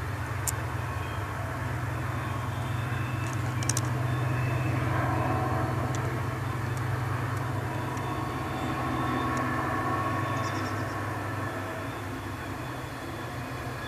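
Distant train locomotive engine, a low steady drone that swells a little and eases off, heard as the train draws near.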